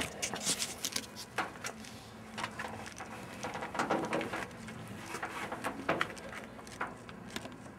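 Irregular clicks, rustles and scuffs of a handheld camera being moved and handled, with no steady source behind them.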